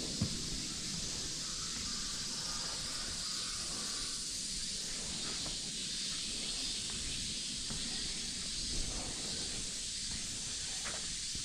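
Chorus of cicadas, a steady high hiss-like drone, with a few soft taps scattered through it.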